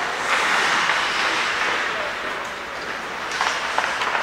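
Ice hockey play on the rink: skates scraping and carving the ice, with a few short sharp clacks a little after three seconds in.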